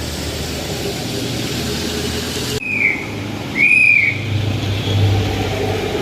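Road vehicle travelling in rain: a steady hiss of rain and road with a low engine hum. About halfway through come two short, high whistle-like tones that rise and fall, the second louder and longer.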